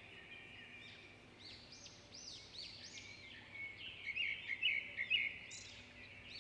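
Faint birdsong: a bird repeating short arched chirps, a little louder and quicker in the second half.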